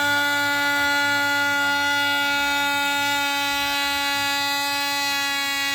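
DeWalt 20V oscillating multi-tool running with a steady, high buzz at one pitch while its blade cuts a chunk off a piece of wood.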